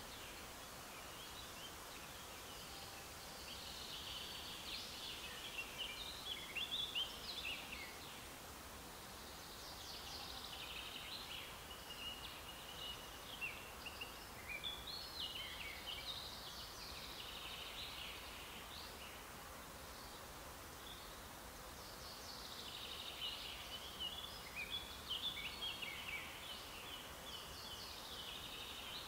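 Songbirds singing in three spells of quick chirps and short trills, over a steady faint background hiss.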